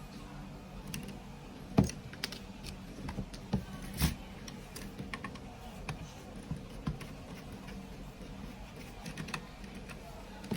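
Irregular small clicks and taps of a screwdriver and small parts being handled while a fusion splicer's USB port is removed. Sharper knocks come about two seconds in and again about four seconds in, over a steady low hum.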